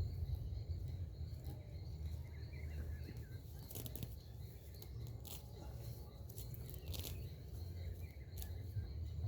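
A few irregular short knocks and scrapes from hand work over a low rumble, with a faint steady high whine behind.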